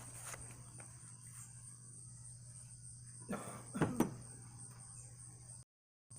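A steady low hum under a steady high-pitched background whine, with two short scraping sounds about three and four seconds in, the second the loudest, as parts are handled during the grille fitting.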